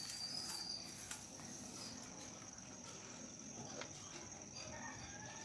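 A steady high-pitched insect trill in the background, with faint scratches and light taps of a slate pencil writing on a slate.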